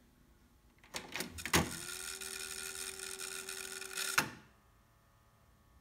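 Onkyo TA-1500 cassette deck's transport: a few mechanical clicks as a key is pressed, then the tape fast-winding with a motor whir that rises in pitch and holds steady for about two and a half seconds, ending in a sharp clunk as the transport stops.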